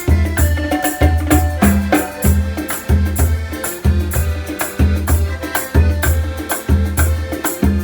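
Sinhala calypso-style band music playing an instrumental passage without vocals: a bouncing bass line repeating in a steady rhythm under hand percussion and sustained melody instruments.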